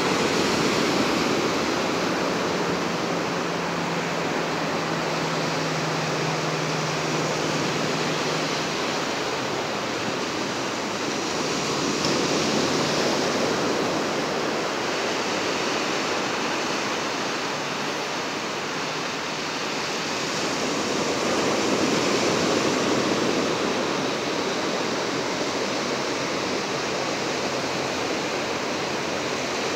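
Ocean surf washing onto the beach, a steady rushing that swells gently a couple of times. A faint low hum sits under it for the first few seconds.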